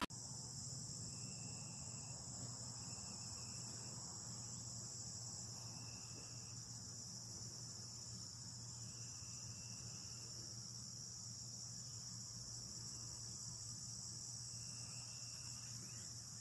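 Steady, high-pitched chorus of crickets trilling, with a lower, shorter insect call that comes and goes every few seconds.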